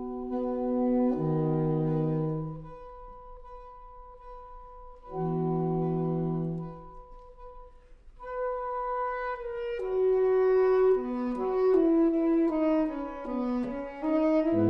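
Saxophone quartet (soprano, alto, tenor and baritone saxophones) playing live. A high note is held while low chords swell in twice and fade. About eight seconds in, the parts move into quicker shifting notes that step downward and build into a loud full chord near the end.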